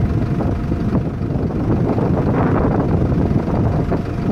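Strong wind buffeting the microphone: a loud, steady rushing roar with no break.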